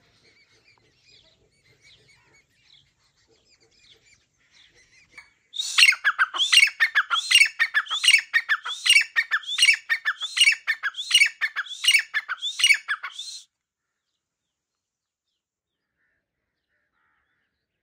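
A bird calling close by. A few faint chirps come first. About five seconds in, a loud run of sharp, repeated calls begins, roughly two a second, each with a quick downward sweep. The calls go on for about eight seconds and then stop abruptly.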